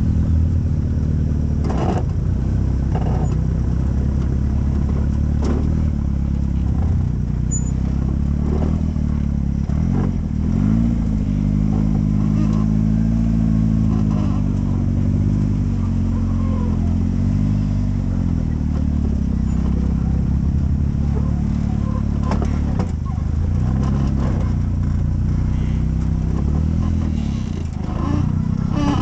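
Tube-chassis rock-crawling buggy's engine running under load over rock, its pitch rising and falling as the throttle is worked, with occasional knocks and clatter from the chassis and tyres.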